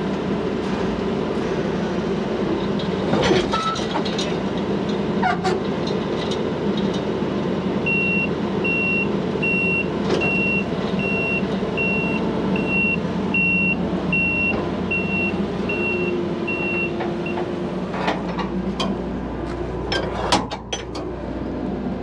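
Combine harvester's diesel engine running steadily. About eight seconds in, a reversing alarm starts beeping at an even pace of roughly one and a half beeps a second and goes on for about nine seconds. A few metallic knocks and clanks sound near the start and near the end.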